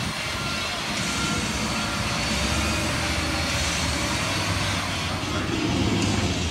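Fire truck's diesel engine running as the aerial ladder truck drives past, with road noise; the low rumble grows stronger partway through.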